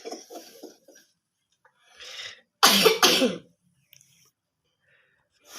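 A man coughing: a small cough about two seconds in, then two loud coughs close together.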